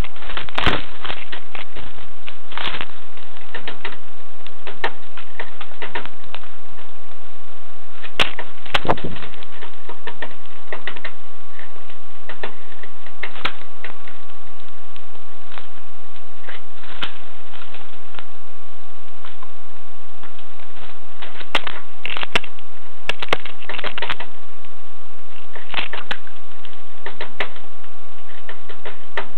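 Irregular sharp taps and clicks of birds pecking at seed in a wooden tray feeder, over a faint steady hum.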